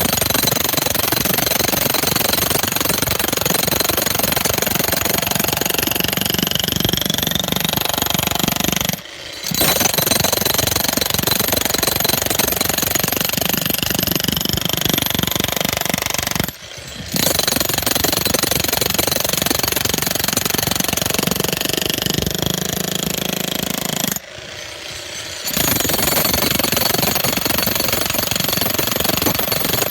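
Bauer 35-pound electric demolition hammer (jackhammer) chiselling into a concrete pad, hammering continuously in long runs with three short pauses, about a third, halfway and four-fifths of the way through.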